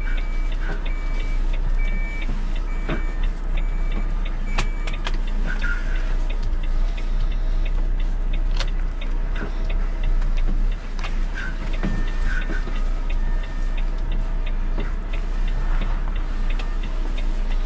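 Volvo truck's diesel engine running at low speed in the cab, with the turn-signal indicator ticking about one and a half times a second for the first few seconds and again briefly around the middle.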